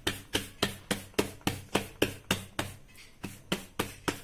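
Bajra (pearl millet) dough being patted flat into a bhakri with both hands on a flour-dusted steel plate: a steady rhythm of soft slaps, about three and a half a second.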